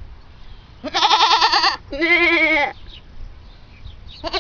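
A goat bleating twice in quick succession, each call under a second long with a wavering pitch, and a third bleat starting at the very end.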